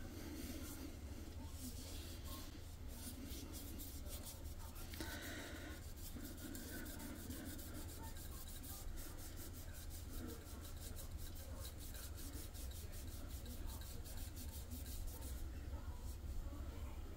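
A cloth rubbing over an etched amber glass bottle, buffing Rub 'n Buff into the etching: a faint, quick, scratchy rubbing of many short strokes, busiest in the middle of the stretch.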